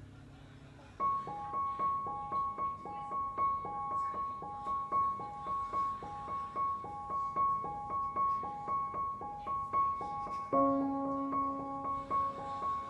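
Background music: a light, repeating pattern of high notes, about two a second, starting about a second in, with lower notes joining near the end.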